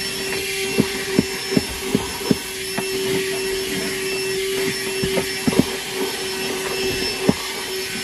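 Handheld car vacuum running steadily on the car's floor, a constant motor whine with a hiss of suction. Scattered sharp clicks, most in the first couple of seconds and a few more later, are grit and debris rattling up the nozzle.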